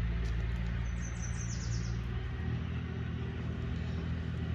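A steady low mechanical hum, like an engine or motor running. A short run of high bird chirps comes about a second in.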